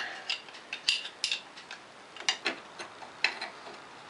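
A wrench working a half-inch bolt loose on a steel engine mount: a string of short, irregular metal clicks and clinks, a few each second.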